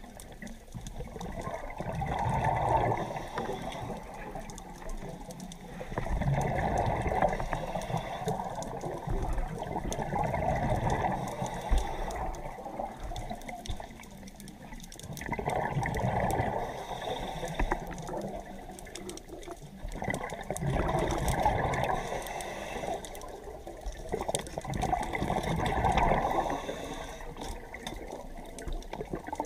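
Scuba diver breathing underwater through a regulator: exhaled bubbles gurgle and rush in regular swells about every four to five seconds, with quieter inhales between them.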